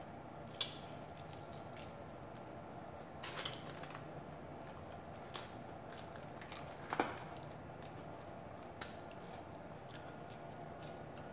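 Eating fried chicken wings, lemon pepper flats fried hard: a handful of short, scattered crunches and bites as the meat is torn from the bone and eaten, the loudest about seven seconds in, over a steady low room hum.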